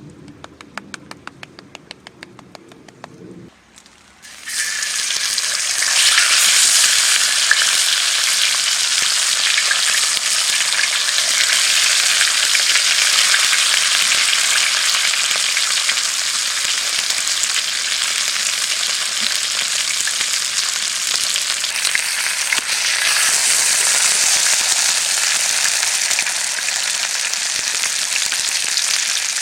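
Food sizzling in hot oil in a pan: a few faint clicks, then about four seconds in a loud, steady frying sizzle starts suddenly and keeps on.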